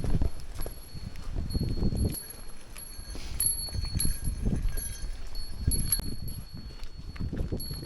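Hikers' footsteps squelching and thudding on a wet, muddy mountain trail in an irregular walking rhythm, with low wind rumble on the microphone.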